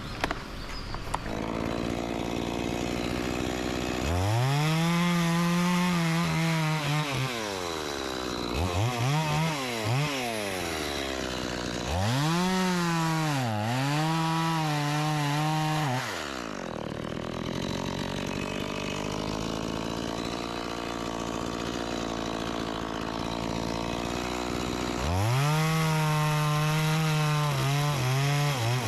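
Two-stroke chainsaw idling and revving to full throttle in three long runs, about 4, 12 and 25 seconds in, with two short blips between, cutting into a teak trunk.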